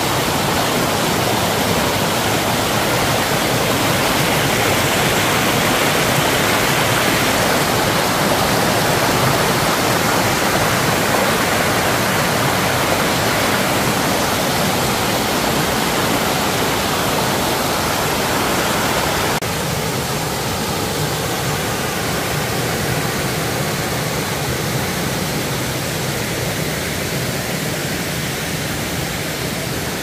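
Rocky mountain stream rushing over small cascades, a steady loud water noise. It steps down in level abruptly about two-thirds of the way through.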